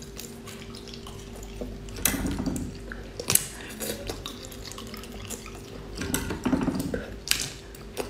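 Wet slurping and sucking as small marinated snails are sucked off a skewer in quick succession, in two spells about two and six seconds in. Sharp clicks are heard along with the slurping, over a faint steady hum.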